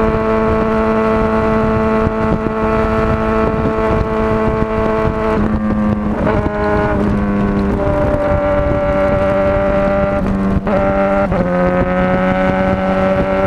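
Motorcycle engine running steadily under way, its note holding a constant pitch and then shifting several times: a break about five and a half seconds in, another around ten to eleven seconds, after which the note drops and slowly rises again. A rough rumble of wind noise sits underneath.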